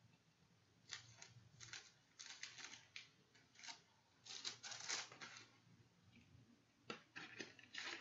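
Faint clicks and rustles of hands handling a CD, its clear plastic case and paper cards, in clusters from about a second in, with a short lull before a sharper click near the end.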